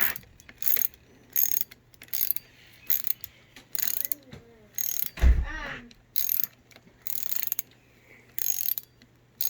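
Socket ratchet wrench clicking in short back-and-forth strokes, about one every three-quarters of a second, as the brake lever perch bolts are run in. There is a dull knock about five seconds in.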